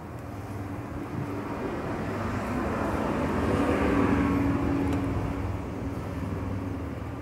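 A passing engine-driven vehicle in the background, a steady low drone that swells to a peak about four seconds in and then fades away.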